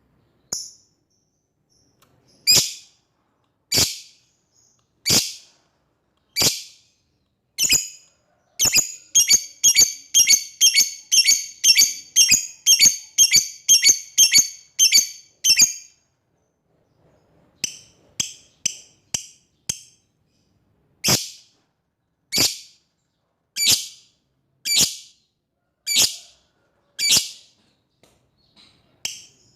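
Lovebird calling: sharp, high chirps spaced about one every second and a half, breaking about a third of the way in into a fast run of about three a second that lasts some seven seconds, then back to single spaced chirps. It is the long chattering call that the uploader says calls out to a rival.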